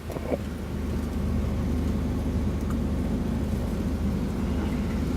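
A semi truck's diesel engine idling with a steady low rumble. A faint knock of handling dies away right at the start.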